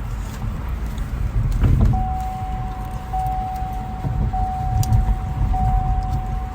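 Low rumble of a running car, with a knock a little under two seconds in. Then a steady electronic tone starts up, breaking off briefly about once a second, like a car's warning chime.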